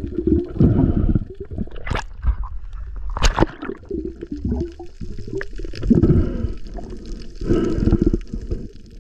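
Water gurgling and sloshing, muffled as heard through an underwater camera. It comes in uneven surges, with two sharp clicks about two and three seconds in.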